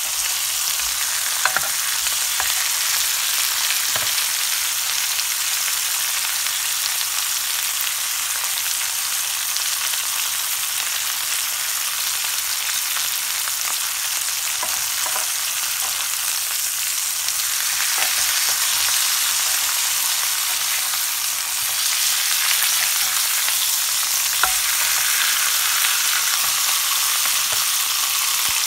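Pork chops sizzling steadily in a ridged grill pan, with a few sharp clicks along the way.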